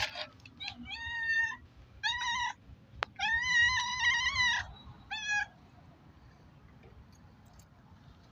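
Domestic cat meowing four times in a row, the third meow the longest, with a sharp click just before it.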